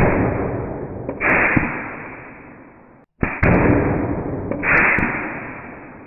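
Pneumatic 14-gauge T-nailer firing into plywood: a sharp shot about a second in, then two close together around three seconds in and one more near five seconds, each followed by a long fading hiss of exhaust air.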